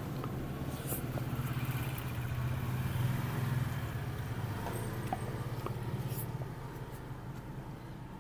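A motor vehicle's engine running with a steady low hum, which fades away after about six and a half seconds.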